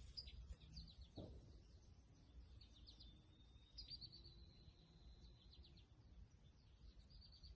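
Faint birdsong: repeated chirps and a short trill, over a low background rumble.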